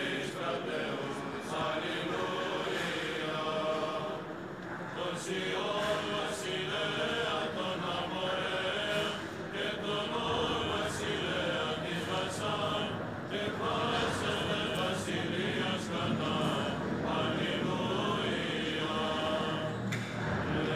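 Greek Orthodox church chanting: a continuous liturgical chant, with a few short pauses.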